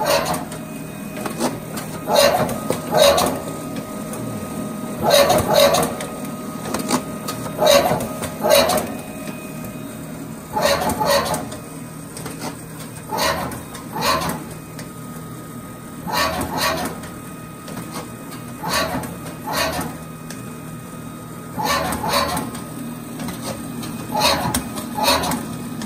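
Duplo DocuCutter CC-330 paper cutter running and trimming poster sheets to full bleed. A steady motor hum runs under a pair of sharp knocks that comes about every two and a half seconds, one pair per sheet fed through.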